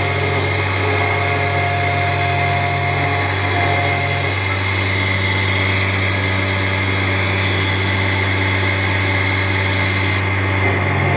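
Heavy-duty CNC router's belt-driven horizontal spindle running steadily as it mills into a solid wood beam, a constant machine hum with some tones dropping out about four seconds in.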